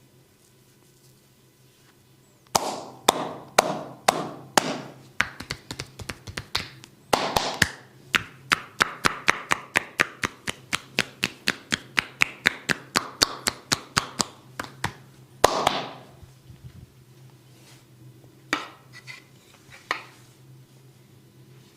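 Hand strikes of a barber's percussive massage: slaps and chops landing on skin, first a few spaced apart, then a quick run of about five a second that ends in a louder slap. A couple of fainter taps follow near the end.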